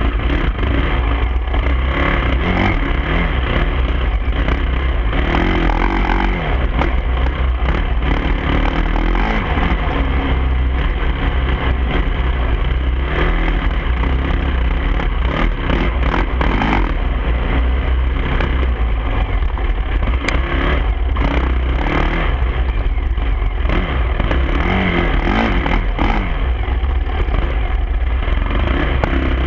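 Dirt bike engine revving up and down as the bike is ridden over a rough trail, heard from a camera mounted on the bike. Frequent knocks and rattles from the bumps run through it.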